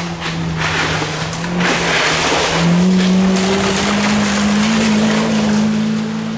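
1.5-litre front-wheel-drive Mazda 2 (Demio) rally car driving past on a dirt forest stage: its engine note steps up about halfway through and keeps climbing as it accelerates away, with a loud rush of tyres on the loose surface in the first half.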